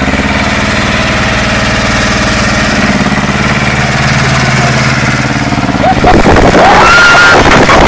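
Small farm tractor's engine running steadily under load as the tractor tries to work out of deep mud. About six seconds in it gets louder and shouting voices join in.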